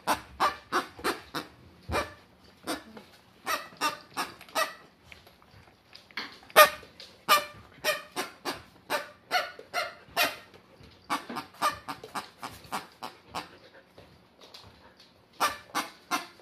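Noise-making plush turkey dog toy, squeezed by hand, giving a rapid string of short calls, about three a second, broken by a few brief pauses.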